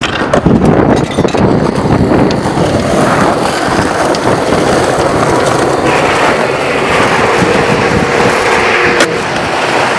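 Skateboard wheels rolling over rough concrete: a loud, steady rumble, with a sharp clack about nine seconds in.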